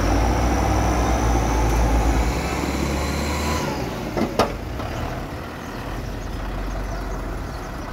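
Kubota M6040 tractor's diesel engine running loud as the tractor drives past, with a faint high whine over it. About three and a half seconds in the engine sound drops. A short sharp knock follows just after, and then a quieter steady running.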